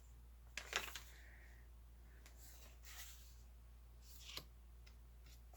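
Near silence with a steady low hum and a few faint, brief rustles and taps of paper being handled during crafting.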